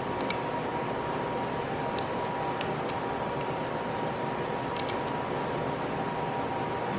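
Faint light clicks of small parts being handled as a new carbon motor brush is fitted into the drill's brush holder, scattered over a steady background hiss with a thin steady hum.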